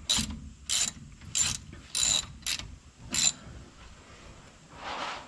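Ratchet wrench tightening a bolt on a disc brake caliper: six quick ratcheting strokes about every half second that stop after about three seconds, then a softer rustle near the end.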